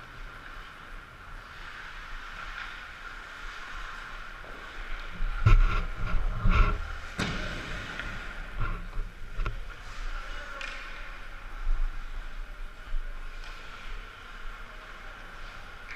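Ice hockey skates gliding and scraping on rink ice, close to a helmet-mounted camera, over a steady hum. A cluster of loud knocks comes about five to seven seconds in, and a few lighter knocks follow later.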